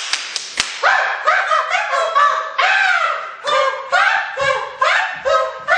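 A few sharp hand slaps at the start, then two men giving a quick run of short, excited yelps and shouts, each rising and falling in pitch.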